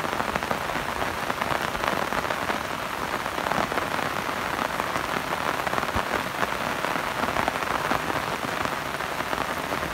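Steady rain falling on a shallow river and its muddy bank: a dense, even patter of drops.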